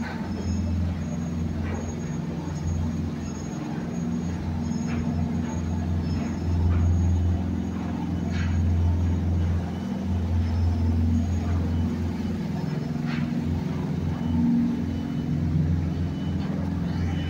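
Low, steady engine rumble that wavers a little in strength, with faint short knocks or splashes now and then.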